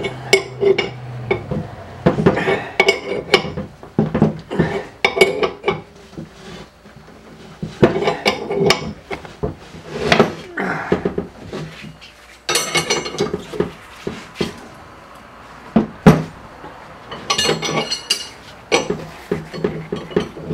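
Steel wrench clinking against the screw and frame of a C-frame bushing press as it is cranked in short strokes, forcing a bushing into a steel lower control arm as the fit gets tight. The clinks come in bunches every second or two, with one sharp knock about three-quarters of the way through.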